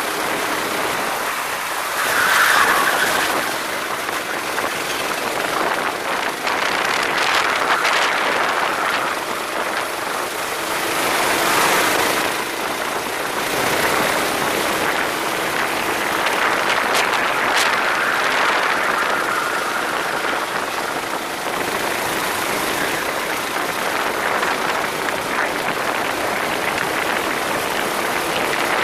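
Go-kart at race pace, heard on board: a steady rush of engine and wind noise that swells and eases every few seconds.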